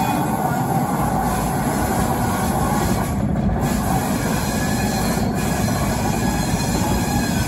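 Fowler diesel shunting locomotive running steadily as it rolls slowly along curved track, with wheel squeal from the rails.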